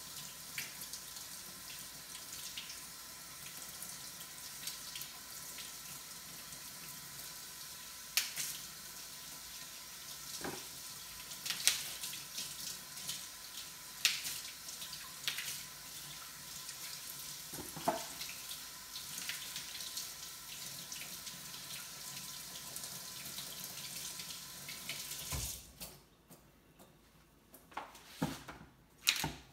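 Kitchen tap running into a sink, with scattered knocks and clatters. The water shuts off a few seconds before the end, leaving a few light knocks.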